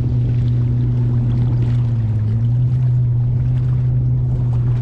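A boat engine running at a steady low hum, dipping slightly in pitch about two seconds in.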